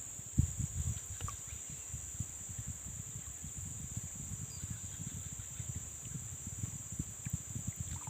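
Insects droning in a steady high buzz, with irregular low rumbles on the microphone, the strongest about half a second in.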